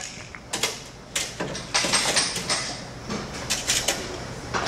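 Workshop handling clatter: a series of short knocks and scrapes as pry bars and motor parts are set down and moved about on a workbench, with a longer scraping stretch about two seconds in.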